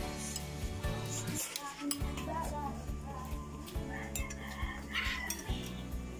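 A metal spoon clinking and scraping against a ceramic soup bowl several times, over background music.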